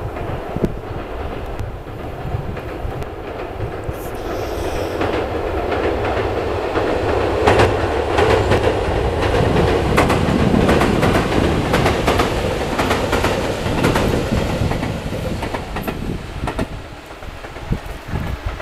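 Tobu 6050 series electric train passing over a river bridge, its wheels clicking over the rail joints. The sound builds as it approaches, is loudest for several seconds as it goes by, then fades as it runs off.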